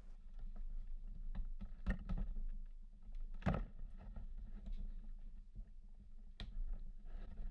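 Scattered light knocks and taps, with a few sharper ones about two, three and a half, and six and a half seconds in, over a steady low hum: the sound of handling work on a car's plastic front bumper and lip.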